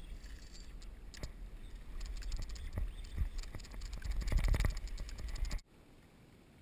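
Water slapping and splashing against a kayak hull, with irregular clicks and knocks over a low wind rumble; about five and a half seconds in it cuts to a faint steady hiss.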